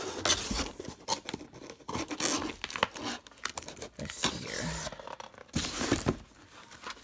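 A cardboard shipping box and plastic wrap being handled as a laptop is unpacked: irregular rustling, crinkling and tearing, with scrapes and a few sharp knocks.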